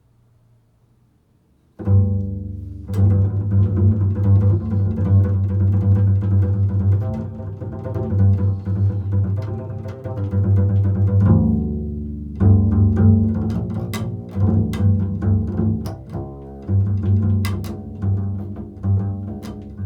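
Solo double bass played pizzicato: an improvised line of plucked low notes that starts about two seconds in.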